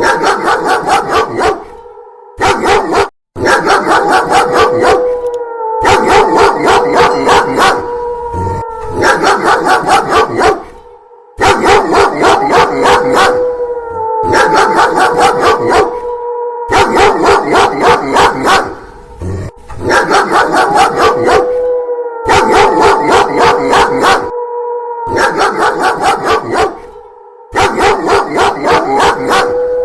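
Dog barking rapidly in spells of a few seconds, several barks a second, over a long steady howl that bends down in pitch at the end of each spell. The wolf-like howl and the barking repeat as a loop every five or six seconds.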